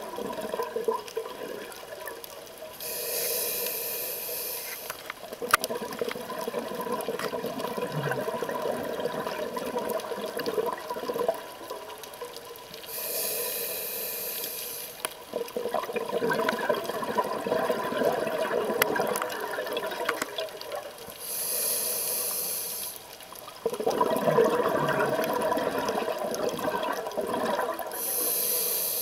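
Scuba diver breathing through a regulator, heard underwater. There are four hissing inhales about eight seconds apart, each followed by a long gurgling rush of exhaled bubbles.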